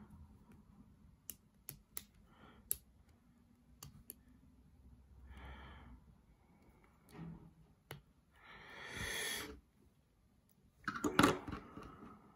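Bootleg Lego-type plastic building bricks clicking and clattering as they are picked out and pressed together. Sharp single clicks are scattered through, with a hiss of about a second near the middle and the loudest clatter near the end.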